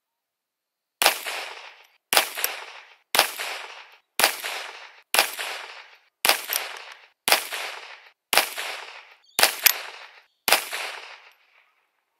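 Ten shots from a Volquartsen Black Mamba .22 LR semi-automatic pistol firing CCI Mini Mag 40-grain high-velocity rounds. The shots come about a second apart, each a sharp crack that rings out for most of a second.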